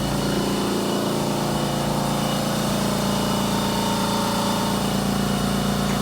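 Electric hydraulic pump motor of a car lift running at a steady pitch as the car is raised, starting and cutting off suddenly.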